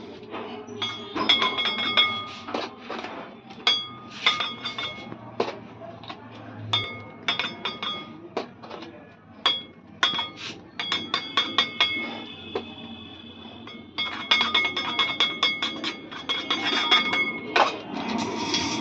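Metal cake-icing tools, a palette knife and scraper, clinking and scraping against a spinning metal cake turntable while cream is smoothed on. Rapid clusters of sharp metallic clicks come in bursts, each ringing briefly at the same bright pitches.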